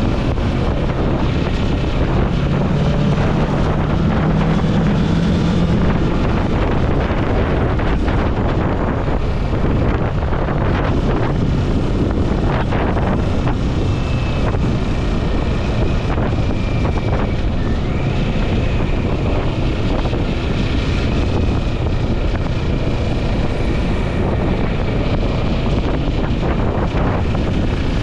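Wind rushing over the microphone on a moving motorcycle, with a 2022 Kawasaki Ninja 650's parallel-twin engine running underneath. A low drone stands out for a few seconds near the start.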